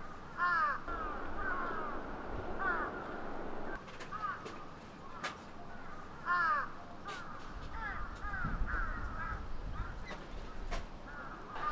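Birds calling outdoors: clusters of short, repeated calls every second or two, over a low rumble that comes and goes.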